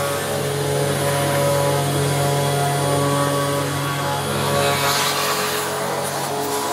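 CNC router spindle running steadily while its bit cuts a polycarbonate sheet, making a constant drone with a cutting hiss over it. The hiss swells briefly about five seconds in.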